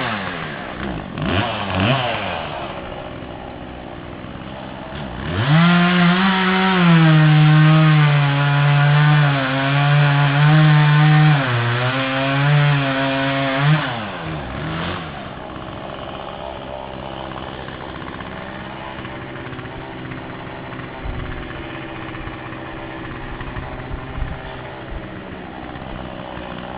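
Chainsaw at full throttle cutting wood, its pitch wavering under load, after a few short revs near the start. About halfway through it drops back to a steady idle.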